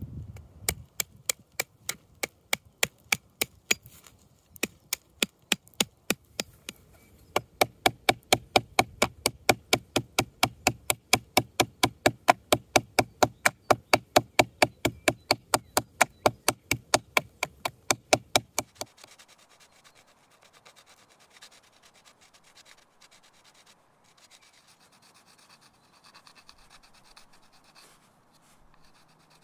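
Deer-bone adze blade chopping into dry willow wood: a steady run of sharp strikes, about three a second, with two short pauses. About two-thirds of the way in the chopping stops and gives way to faint rubbing as the bone blade is honed on a small whetstone.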